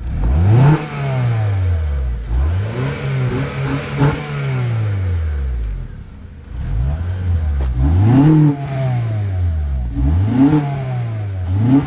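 Car engine revved repeatedly while parked: about five throttle blips, each climbing quickly and dropping back to idle.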